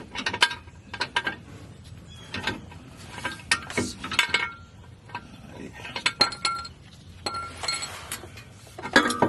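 Irregular metallic clinks and knocks, some leaving a short ringing tone, as a steel driveshaft safety loop is worked and knocked into place by hand under the car.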